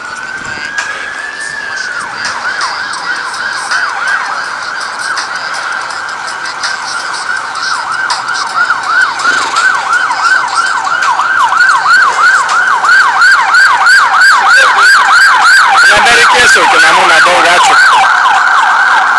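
Emergency vehicle siren sounding a rising wail, then a rapid yelp, growing louder as it approaches.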